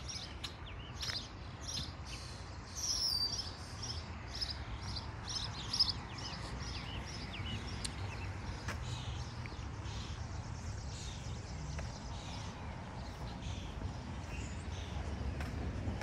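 Small songbirds chirping and singing in quick high phrases, busiest in the first six seconds and thinning out after, over a steady low background rumble.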